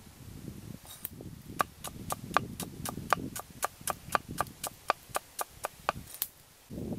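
Cleaver slicing shallots on a wooden chopping block: a steady run of sharp knocks of the blade on the wood, about four a second, starting about a second and a half in and stopping about six seconds in.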